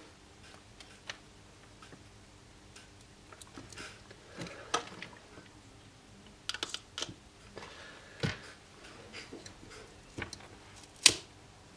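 Scattered light clicks and taps of hands handling a LiPo battery pack on a workbench, with a few quick spritzes of a trigger spray bottle of solvent about halfway through and a sharper click near the end.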